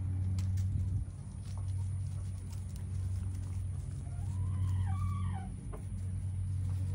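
Backyard hens making a few soft clucking calls between about four and six seconds in, with faint clicks of pecking and scratching in gravel, over a steady low hum.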